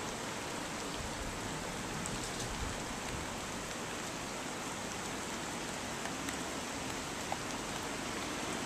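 Steady hiss of heavy rain falling, with a few faint drop ticks.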